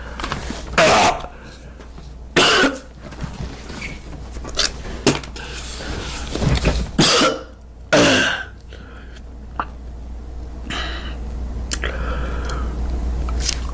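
A man coughing and clearing his throat after swallowing soap: several short, loud bouts with pauses between, the four strongest spread through the stretch.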